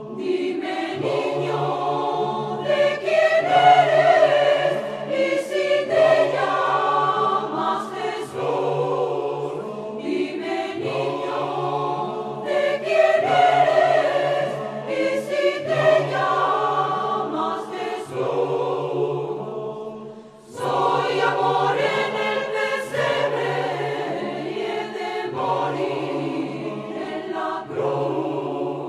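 Mixed choir of men's and women's voices singing a Christmas carol, with a short break between phrases about twenty seconds in.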